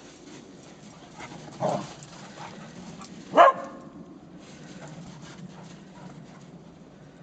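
A dog barking twice, two short single barks about two seconds apart, the second louder.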